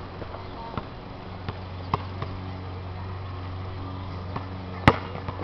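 A basketball on an outdoor court: a couple of faint knocks, then one loud, sharp bang near the end as the tossed ball strikes. A steady low hum runs underneath.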